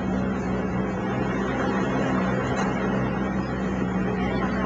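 Motorboat engine running at a steady speed, an even drone with no change in pitch.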